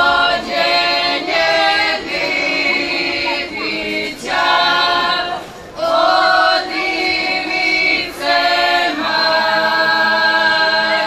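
A group of women singing a folk song together without instruments, in short phrases of long held notes with brief breaks between them.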